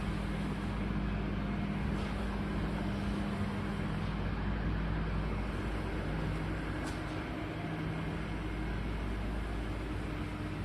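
Solar chest freezer's compressor running with a steady low hum.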